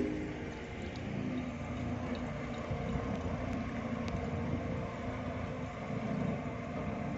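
Diesel engine of heavy construction machinery running steadily with a low rumble.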